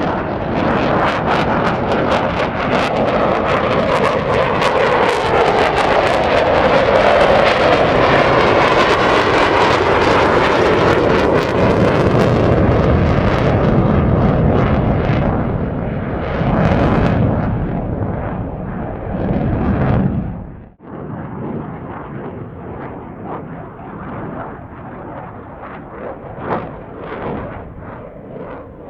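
Fighter jet engine in afterburner passing: a loud, dense jet noise whose pitch bends slowly as it goes by, fading after about twelve seconds. About two-thirds through it cuts abruptly to a quieter, duller jet sound.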